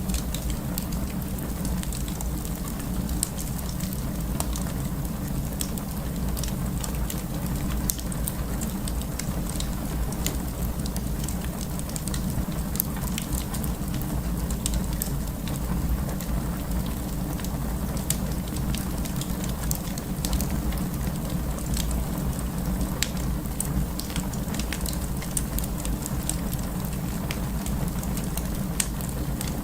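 Wood fire burning in a fireplace: a steady low rumble of flames with many irregular sharp crackles and pops from the burning wood.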